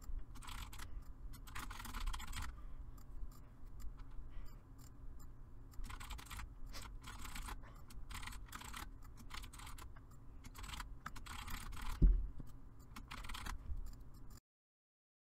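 Computer keyboard typing in quick runs of keystrokes, with a single low thump about twelve seconds in. The sound cuts off abruptly near the end.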